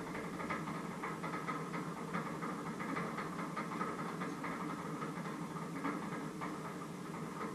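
A steady machine-like hum, with faint, irregular taps of knife work at a bowl of vegetables.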